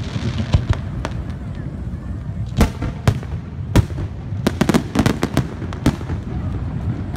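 Aerial firework shells bursting: separate sharp bangs every second or so, then a quick run of crackling reports from about four and a half to six seconds in, over a steady low background din.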